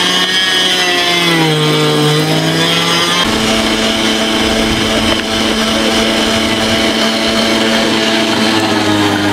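Electric meat grinder motor running while mincing fish and vegetables, its hum shifting pitch as the load changes, then holding steady from about three seconds in.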